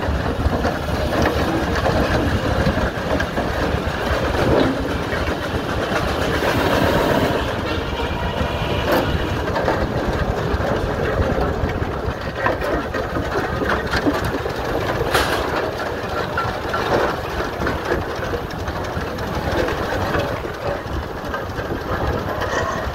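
Old steam road roller running, a steady mechanical rumble and rapid clatter from its engine and gear, with a few sharp clicks.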